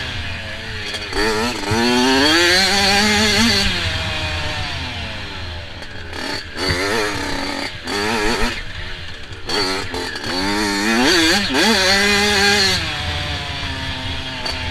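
Dirt bike engine revving hard and easing off again and again, its pitch rising and falling with the throttle and gear changes along a rough trail.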